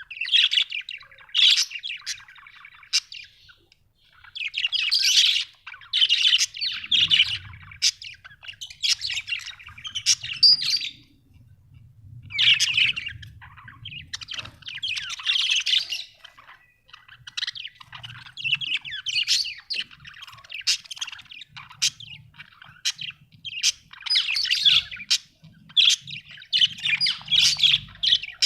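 Budgerigars chirping and warbling, in fast chattering runs of a few seconds broken by short pauses, with some harsher squawks.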